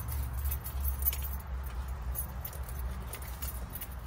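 Light metallic jingling and clicking as a lanyard with its metal clips is handled, over a steady low rumble.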